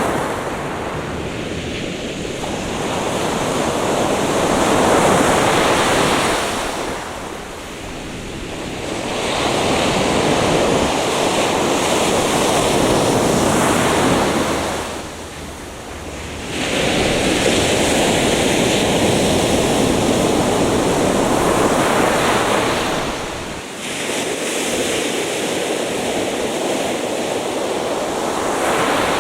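Atlantic Ocean surf breaking and washing up the beach, the rush of water swelling and easing in surges about every eight seconds.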